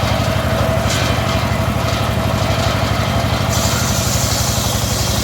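Engine driving a home-assembled circular saw, running steadily with an even low pulsing. About three and a half seconds in, a steady high hiss joins it.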